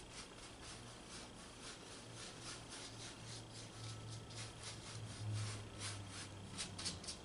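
Soft mop brush swished and dabbed across a wet acrylic canvas to blend the paint, a faint run of brushing strokes a few times a second, quicker and louder near the end.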